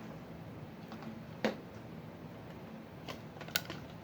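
A few light, sharp clicks and taps of small parts being handled on a workbench: one about a second and a half in, then two more close together near the end, over a low steady room hum.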